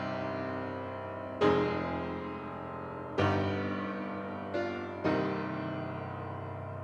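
Grand piano played solo: slow, full chords struck about every two seconds, each left ringing and fading away, with a quick short chord leading into the next one about two-thirds of the way through.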